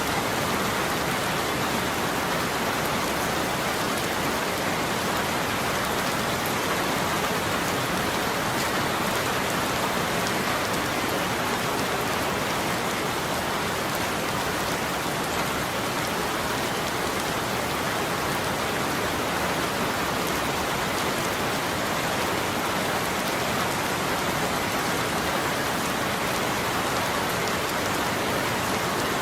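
Steady rain falling, an even hiss of drops on surfaces with no break or change.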